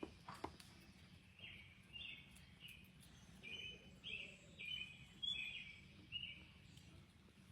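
A bird chirping faintly: a run of short, high notes, about two a second, with a couple of soft clicks at the very start.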